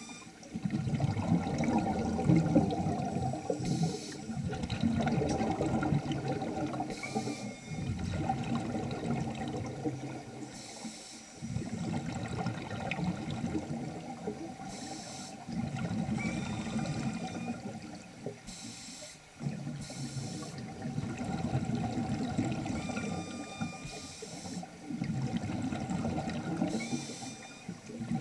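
Scuba breathing heard underwater through a regulator, repeating every three to four seconds: a short hiss of inhalation, then a few seconds of low, gurgling rush as exhaled bubbles escape.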